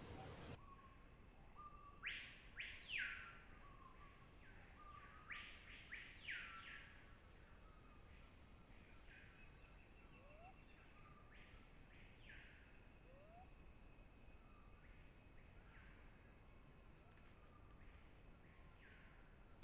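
Faint wild bird calls: quick rising-and-falling whistled notes in two groups in the first seven seconds, then softer scattered notes, over a steady high-pitched whine.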